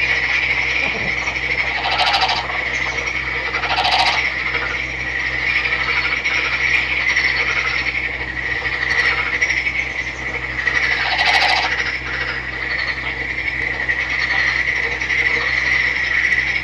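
Male Nagoya Daruma frog calling, a steady unbroken croaking, with three short louder bursts about two, four and eleven seconds in.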